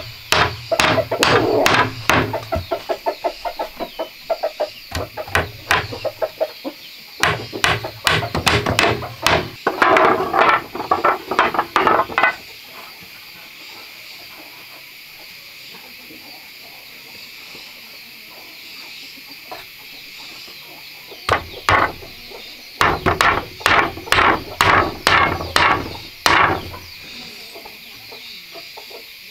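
Hammer driving nails into the wooden slats and frame of a dish rack, in three bursts of quick strikes with a long pause in the middle.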